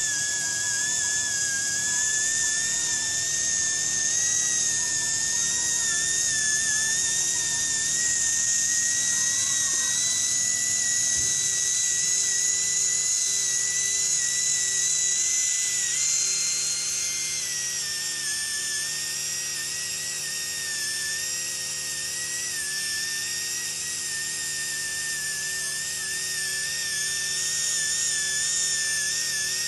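High-pitched whine of a rotary angle-head polishing handpiece spinning a small polishing tip against a steel mold cavity. The pitch wavers slightly and rises briefly a little past halfway before settling back.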